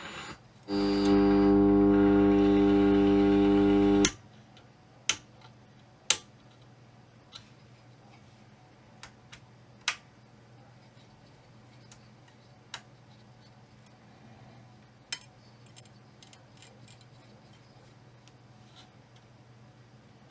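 A held musical chord, cut off abruptly with a click about four seconds in. After that, a faint steady low hum with scattered small clicks and taps.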